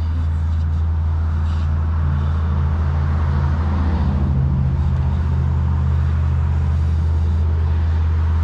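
Street traffic: a steady low hum with a passing car whose noise swells and fades in the middle.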